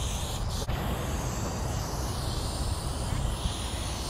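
Aerosol spray can hissing as black paint is sprayed onto a freight car, with a brief break about half a second in, over a steady low rumble.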